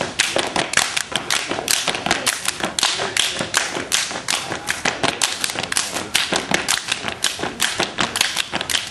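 A step team stepping in unison: stomps on pavement, hand claps and slaps making a fast, steady run of sharp percussive beats, several per second.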